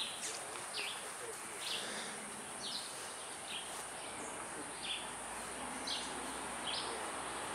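A bird chirping: short high, slightly falling chirps about once a second, over a steady high-pitched hiss.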